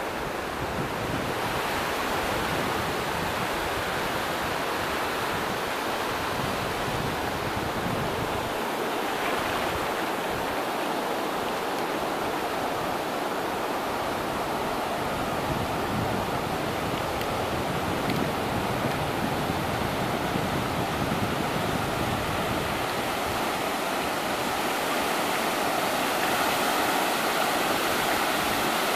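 Sea surf breaking and washing up a flat sandy beach: a steady rush of water that grows a little louder near the end. Wind rumbles on the microphone at times.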